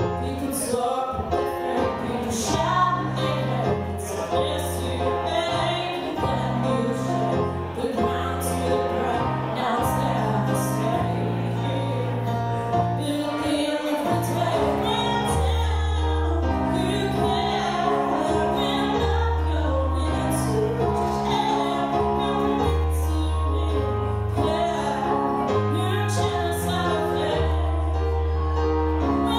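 A woman singing while accompanying herself on a digital piano: held low chords change every second or two under her melody.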